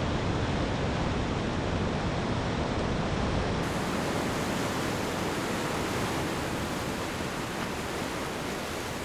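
Steady rush of ocean surf, fading slowly toward the end.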